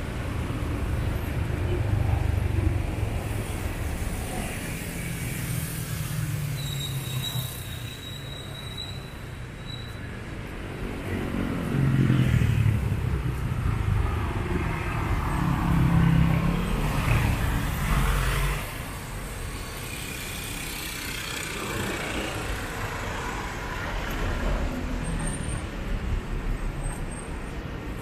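Street traffic: motor vehicles running and passing, with two louder passes about twelve and sixteen seconds in. A thin high steady tone sounds for a few seconds a quarter of the way through.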